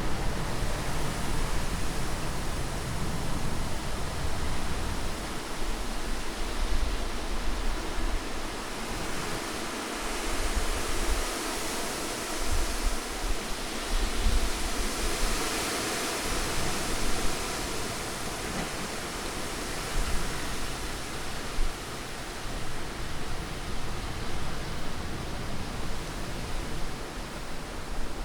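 Steady rushing wind noise with a shifting low rumble, growing brighter and hissier about halfway through.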